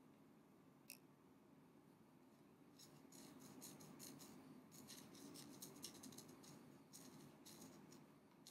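A thin metal tool lightly tapping and scraping on the rim of a glass candle jar: a single tick about a second in, then a quick, irregular run of soft high clicks from about three seconds until near the end.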